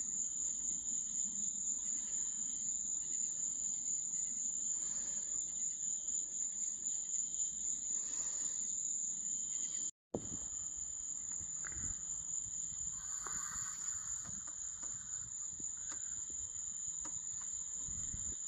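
Cricket trilling steadily in one continuous high note. The sound cuts out completely for a split second about ten seconds in.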